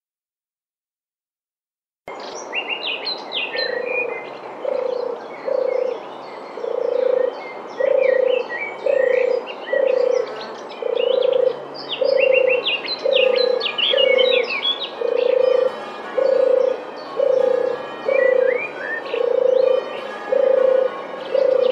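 Frog croaking in a steady rhythm, a little over one croak a second, with small birds chirping over it, busiest in the first half. The sound starts about two seconds in, after silence.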